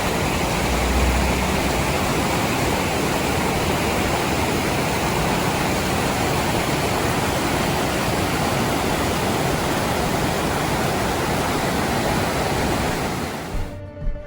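Loud, steady rush of a fast-flowing mountain stream over rapids or a waterfall. It gives way suddenly to music near the end.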